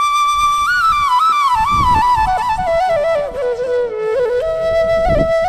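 Music: a single ornamented melody line that steps down gradually, then rises and settles on a held higher note near the end.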